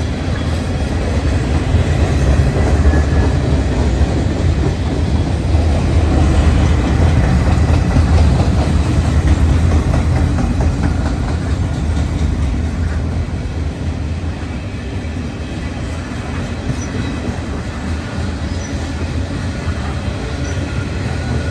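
Freight train cars (tank cars, covered hoppers and autoracks) rolling past on the rails: a steady, low rumble of wheels and trucks, a little louder in the first half and easing off later.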